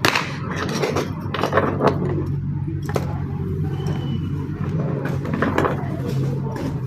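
Sharp clicks and taps of small hand tools working on a tablet during a charging-port repair, over a steady low hum.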